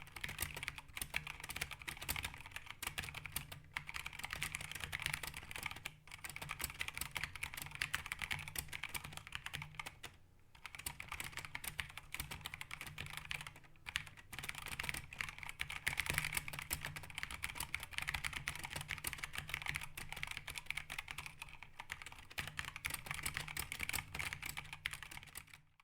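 Fast typing on a 60% mechanical keyboard fitted with Eva 01 keycaps: a dense, continuous run of key clacks, broken by short pauses about six, ten and fourteen seconds in.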